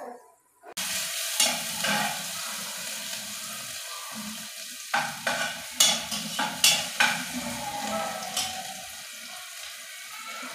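Sliced onions sizzling as they fry in a metal pot, starting about a second in, stirred with a utensil that clicks and scrapes against the pot now and then.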